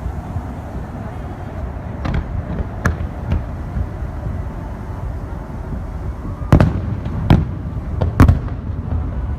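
Aerial firework shells bursting: a few lighter bangs in the first half, then four louder bangs close together near the end, over a steady low rumble.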